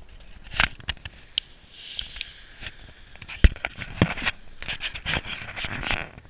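Small Category 1 consumer fireworks crackling and fizzing, with irregular sharp pops; the loudest pop comes about three and a half seconds in.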